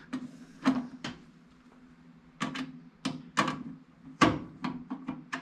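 Irregular sharp clicks and knocks of a long screwdriver working at a screw that won't bite, about a dozen over a few seconds, over a steady low hum.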